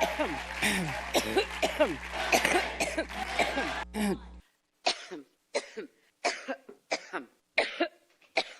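A woman's coughing fit: repeated short coughs, at first over a steady electrical hum and room noise. After a sudden cut to a quiet background, it becomes a regular run of coughs about every two-thirds of a second.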